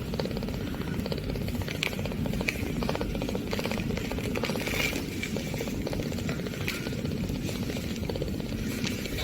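Eight-day-old kitten purring: a steady, low, fast rattle that keeps on without a break.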